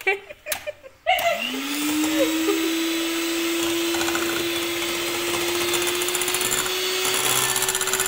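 Electric hand mixer switched on about a second in, its motor whine rising quickly in pitch and then running steadily as the beaters mix cake batter.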